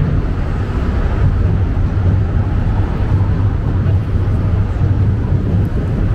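Wind buffeting the camera microphone: a steady low rumble over the noise of a busy city street with passing cars.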